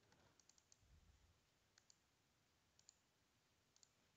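Near silence, with a few faint, short computer mouse clicks scattered through.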